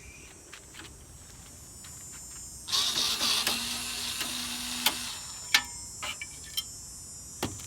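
A handheld power tool whirs for about two seconds, starting about three seconds in, amid light metal clicks and taps from air conditioner parts being worked loose.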